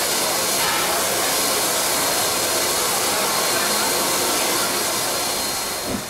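Loud, steady hiss of steam escaping from the standing AC16 steam locomotive 221A; it drops away suddenly at the very end.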